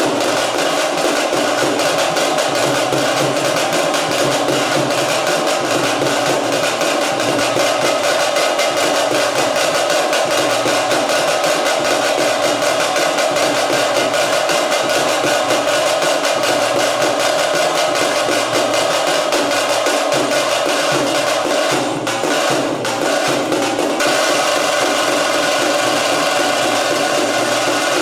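Veeragase folk dance music: fast, steady drumming with a continuous pitched melody over it.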